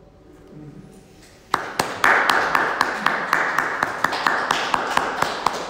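The last notes of a grand piano dying away, then a small audience breaks into applause about a second and a half in, with many separate claps.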